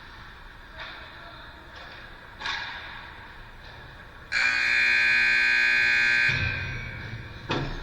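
A loud, steady buzzing tone sounds for about two seconds, starting about four seconds in, followed by a low rumble and a sharp click near the end.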